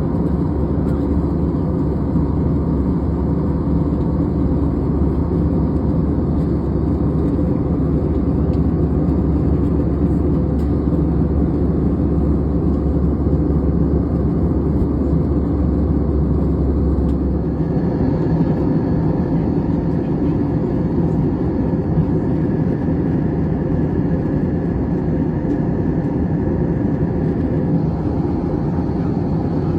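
Steady airliner cabin noise in flight: a loud rushing drone with engine hum. A bit past halfway the deep hum drops away and a higher whine comes in.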